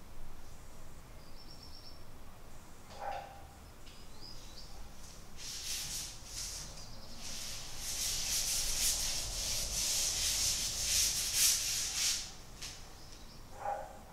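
Paintbrush scrubbing black paint onto a large canvas: a run of rough, scratchy strokes in quick succession from about five seconds in to about twelve.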